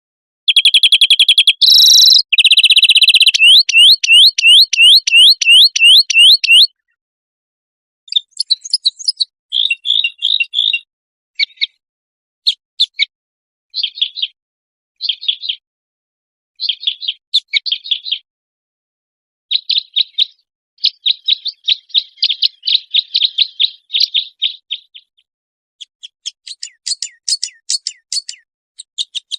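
A compiled recording of cage-songbird song. It opens with a fast run of loud, repeated rising whistled notes for about six seconds. After that come short high trills and chattering phrases, broken by dead-silent gaps between them.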